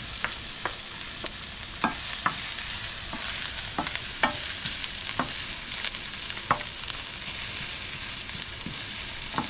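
Chopped onion sizzling in hot oil in a stainless steel pan, stirred with a wooden spoon that knocks lightly and irregularly against the pan.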